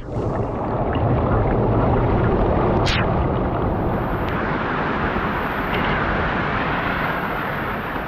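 Small forest waterfall pouring onto rock up close, a steady, heavy rushing of water.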